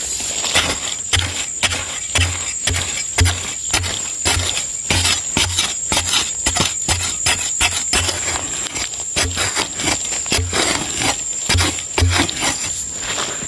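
A narrow metal digging blade stabbing repeatedly into dry, powdery soil at about two strokes a second, each stroke a dull thud with a gritty crunch.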